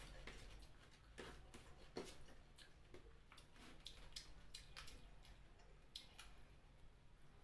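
Faint eating sounds: scattered soft clicks and wet squishes of chewing, at irregular intervals.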